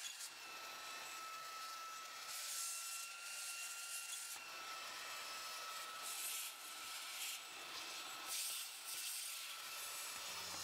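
Cordless stick vacuum running with a crevice nozzle, cleaning out a sliding door track: a steady motor whine under a hiss, with several louder rasping stretches as the nozzle rubs along the track.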